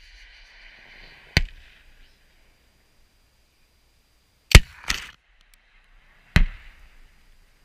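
Sharp blast reports from 84 mm Carl Gustav recoilless rifle fire and rounds bursting downrange: one about a second and a half in, the loudest just past the middle followed at once by a second, and another about six and a half seconds in, each trailing off in an echo.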